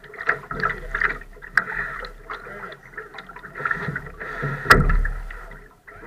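Water splashing and lapping against a Laser sailing dinghy's hull as it sails, with a sharp knock about three-quarters of the way through.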